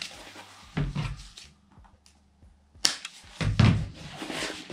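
Vinyl upholstery panel being unfolded and laid flat on a cutting mat: rustling handling sounds with soft thumps, loudest about three and a half seconds in, with a sharp click just before.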